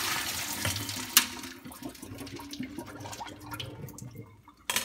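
Ice water poured from a glass bowl through a mesh strainer into a stainless steel sink, draining off blanched cauliflower. The pour is loudest for the first second, with one sharp knock, then trickles on more quietly.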